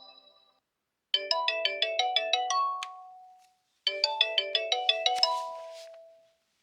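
OnePlus 12 ringtone: a quick run of about ten short pitched notes, some seven a second, ending on one longer note that fades away, played twice about three seconds apart. The last note of the previous ringtone fades out in the first half second.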